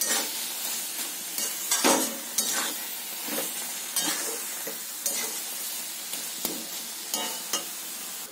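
Slotted metal spatula stirring and scraping a thick cabbage and potato curry around a metal pan, over a steady sizzle of frying. The scrapes come every second or so, loudest about two seconds in.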